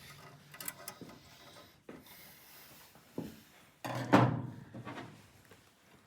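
Hand-handling noises of furnace parts being fitted: rubbing and small clicks, with a louder scraping clunk about four seconds in.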